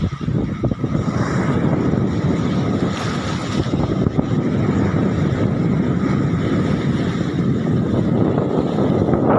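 Steady wind rumbling on the microphone, mixed with sea waves washing against the concrete breakwater blocks.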